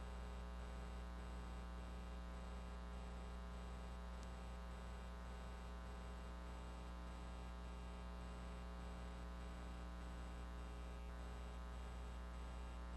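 Steady low electrical mains hum with a faint buzz, unchanging throughout.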